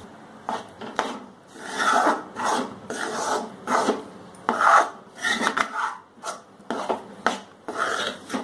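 A metal spatula scraping and stirring thick besan paste in ghee around a kadhai, in repeated rasping strokes about two a second. The besan is being roasted in ghee for besan ladoo.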